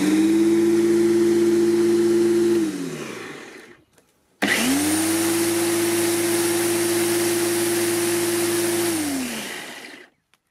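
Parkside PRM 1300 A1 electric lawnmower motor and blade run twice in short bursts. Each time the motor comes up to speed at once with a steady hum, then winds down with falling pitch after the lever is released. There is a brief silence between the two runs.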